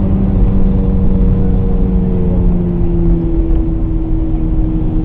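Cabin noise of a diesel BMW car at highway speed, around 130 km/h: steady road and tyre rumble under the engine's drone. One low engine tone fades out about three seconds in, and the higher tones ease slightly down in pitch.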